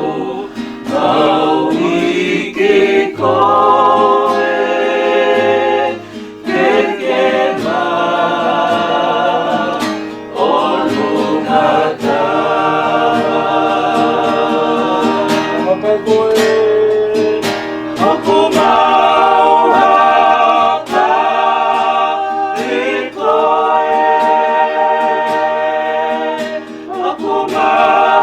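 A choir or congregation singing a hymn in parts, holding long notes, with a low instrumental backing.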